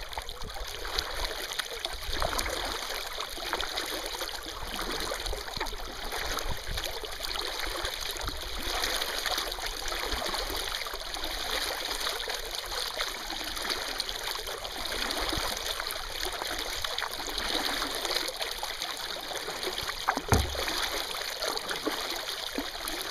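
Kayak paddling on calm water: the steady trickle and drip of water running off the paddle blades, with faint splashes as they dip. A single sharp knock near the end, typical of the paddle striking the kayak's hull.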